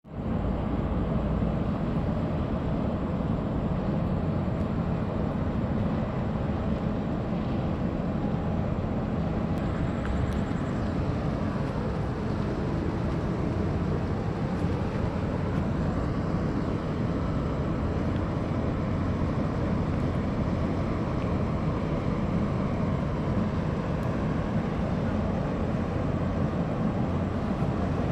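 Steady low rumble of a large container ship's engines as the ship passes close by, even in level throughout.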